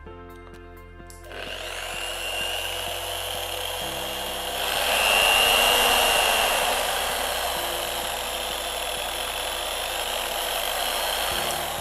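Schtaer SCH-180 1400 W rotary car polisher with a wool pad, switched on about a second in and spinning freely in the air with a steady whine. It gets louder for a couple of seconds in the middle, then is switched off near the end and winds down with a falling whine.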